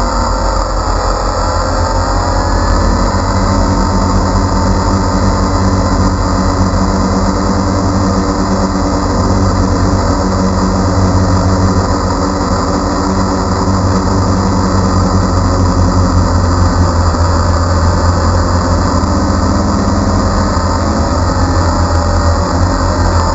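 DJI Phantom quadcopter's electric motors and propellers humming steadily, heard close up from the GoPro mounted on it, with small wavering shifts in pitch as it manoeuvres.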